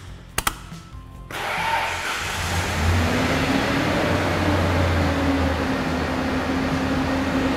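Two sharp clicks, then the Ford F-150's 4.6 L V8 comes to life about a second in and runs steadily at idle, its pitch rising briefly before it settles.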